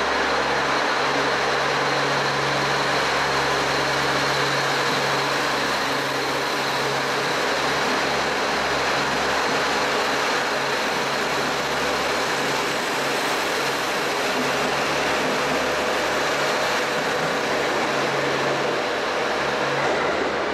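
A JR Central HC85 series hybrid diesel train pulling out of the station and moving away: a steady rumble and rolling noise with a low engine hum that drops out near the end, and a faint steady high whine.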